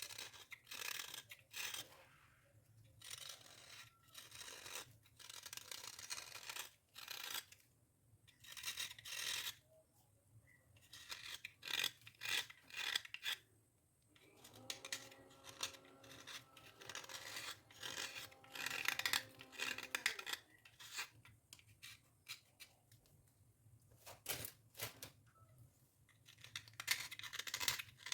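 Close-up scraping and scratching strokes on a dry scalp, coming in quick runs separated by brief pauses.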